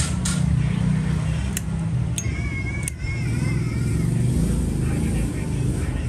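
Steady rumble of street traffic and passing vehicles, broken by about five sharp clicks in the first three seconds and a brief wavering high tone in the middle.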